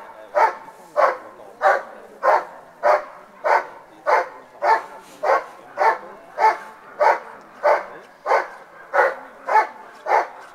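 A dog barking steadily and rhythmically, one sharp bark about every 0.6 s without pause. This is the bark-and-hold at the hide in the protection phase of a working-dog trial.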